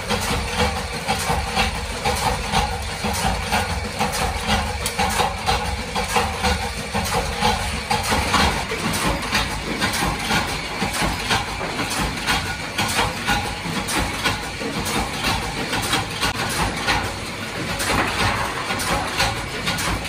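A machine runs steadily under frequent small clanks and rattles of thin sheet metal being cut and handled, and its low hum grows fuller about eight seconds in.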